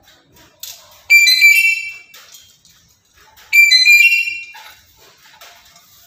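Black-capped lory giving two loud, shrill whistling calls about two and a half seconds apart, each lasting about a second, with softer chattering between them.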